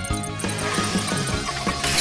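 Cartoon background music, with a whooshing swell building up and peaking near the end.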